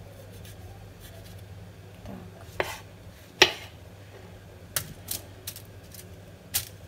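Chef's knife slicing a tomato on a plastic cutting board: several scattered sharp knocks of the blade striking the board, the loudest about three and a half seconds in, over a faint steady hum.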